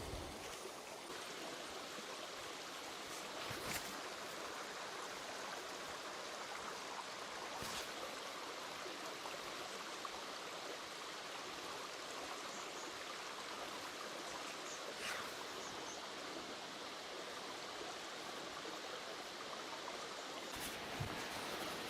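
Steady rush of a forest stream, with a few faint knocks spread through it.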